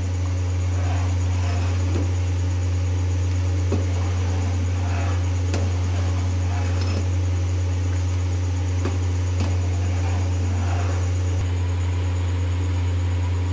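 A steady low hum, with a long metal spoon stirring cornflour-thickened soup in an aluminium pot, now and then scraping or tapping the pot.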